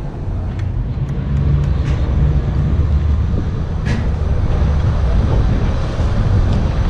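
A motor vehicle engine's low rumble, growing louder about a second in and holding steady after that.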